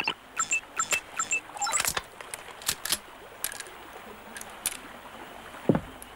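Video-game pickup sound effects: several short high electronic beeps in the first second and a half, then a quick swish and scattered sharp clicks as health and a shotgun are collected. Low thuds come near the end.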